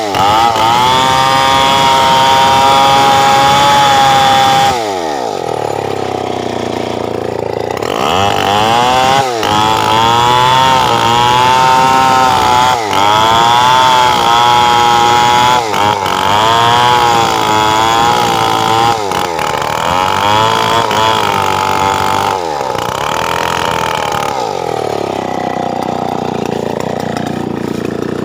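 Stihl 070 two-stroke chainsaw running at high revs, dropping off about five seconds in. It is then run hard again in a series of surges, its pitch dipping and climbing back every two to three seconds, before falling back toward idle near the end.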